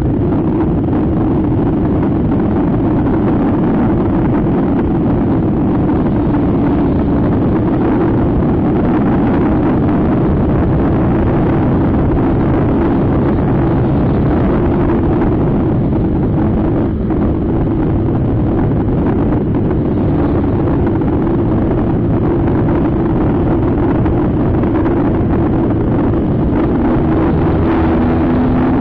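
Scooter riding at steady cruising speed: the engine drone mixed with heavy wind buffeting on the onboard camera's microphone.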